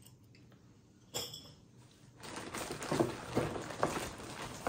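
Plastic packaging crinkling and rustling with many small clicks as an item is handled, starting a little over two seconds in after a short click about a second in.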